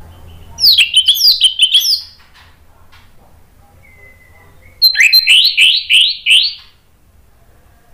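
Orange-headed thrush singing two loud phrases of rapid sweeping whistled notes, each lasting about a second and a half. The first comes about half a second in, and the second starts near the five-second mark after a brief faint thin whistle.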